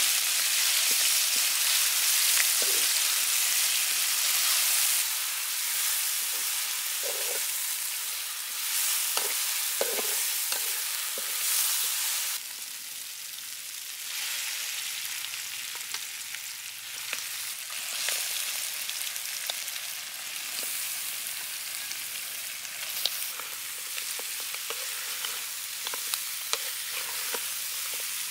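Chili spice paste sizzling in hot oil in a steel wok, stirred with a metal spatula that gives scattered clicks and scrapes against the pan. About halfway through, the sizzle drops suddenly to a quieter level, and chopped Muscovy duck pieces are frying and being stirred in the paste.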